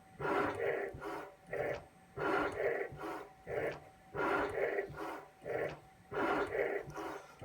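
CNC milling machine driving a fixed, non-spinning custom cutter back and forth like a shaper, scraping the plastic coating off a flat flex cable's copper traces. Each noisy scraping stroke comes about once a second, alternating longer and shorter strokes in a steady rhythm.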